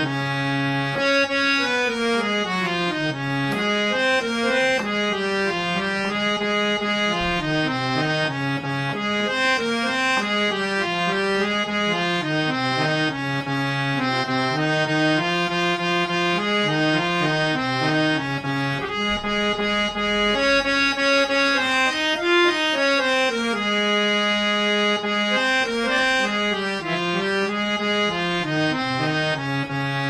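Hand-pumped harmonium played solo: an unbroken melody of reedy notes that climbs and falls in phrases, each note held briefly before moving to the next.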